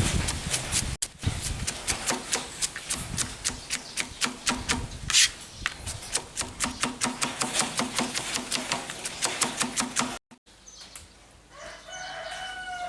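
Knife rapidly chopping an onion on a cutting board, steady sharp knocks about five a second. The chopping cuts off abruptly about ten seconds in, and a rooster crows faintly near the end.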